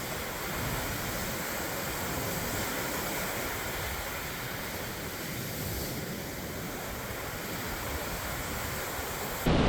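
Steady wash of rough Lake Superior surf, waves rolling in and breaking without a break, stirred up by strong wind.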